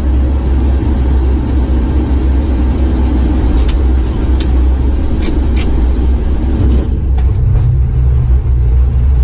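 Steady low rumble of an airliner heard from inside the cockpit while it moves on the ground, with a few short sharp clicks or rattles around the middle, and a steady low hum joining near the end.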